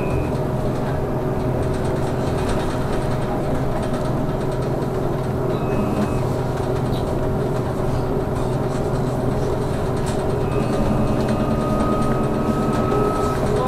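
Trolleybus interior while driving: a steady hum from the electric drive, holding several constant tones over road noise. About ten seconds in, a faint whine enters and slowly rises in pitch.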